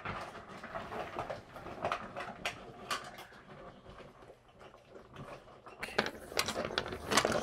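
Dogs eating dry kibble from stainless steel bowls: irregular crunching and clinking of kibble against the metal bowls. It gets louder and busier about six seconds in.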